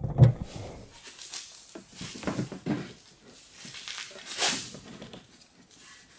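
A steel exhaust rear silencer being lifted into place and its rubber hangers worked onto their mounting pins: irregular rubbing, scraping and light knocks of metal and rubber, with one louder scrape about four and a half seconds in.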